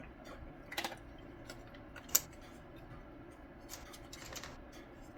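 Plastic clicks and light scraping as clipped-together headlight housing parts are pried and worked apart, with one sharp snap a couple of seconds in.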